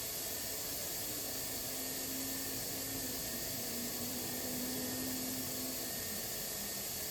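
Spindle of a Chevalier QP1620-L vertical machining center running at a steady 1,000 rpm during a spindle speed test: a constant hiss with a faint steady hum.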